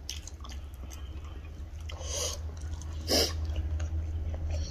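People chewing and biting rice and chicken curry eaten by hand, with short wet smacking and squishing sounds now and then, the loudest about three seconds in. A low steady hum runs beneath.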